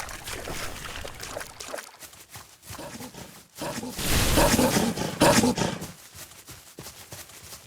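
A loud, rough animal-like growl or roar about four seconds in, lasting about two seconds, with quieter scattered clicks and rustles around it.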